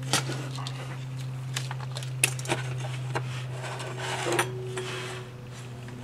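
Scattered light clicks and taps of a small circuit board and a plastic doorbell-push case being handled and fitted together, with a steady low hum underneath.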